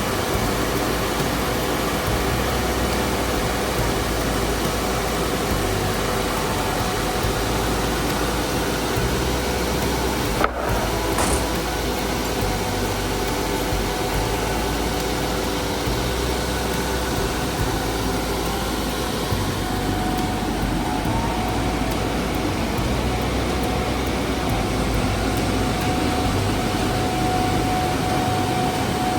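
A woodworking machine's motor running steadily, with a single sharp click about ten seconds in.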